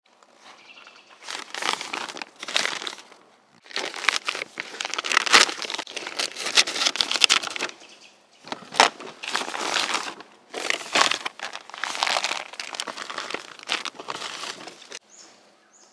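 Plastic packaging of a noodle meal kit crinkling and rustling in repeated bursts as it is handled and unwrapped, with short pauses between handlings.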